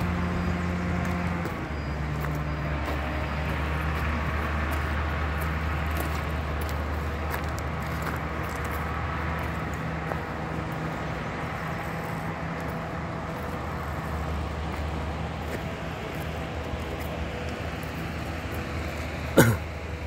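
A steady low engine hum running throughout, over the even rush of a fast-flowing river, with one sharp knock near the end.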